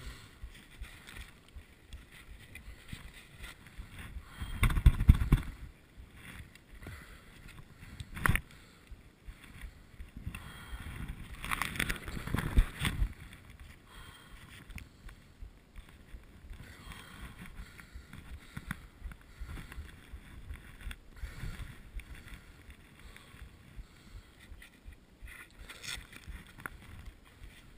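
Muffled rustling and scraping of a skier moving in snow after a fall, with clothing, gloves and gear rubbing against the camera's case. A louder scuffle comes about five seconds in, a single sharp knock a few seconds later, and another stretch of scraping around twelve seconds.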